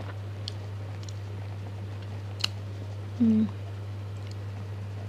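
A few small clicks of a metal spoon and lips while sipping broth from a spoon, with a short hummed 'mm' about three seconds in. A steady low electrical hum runs underneath.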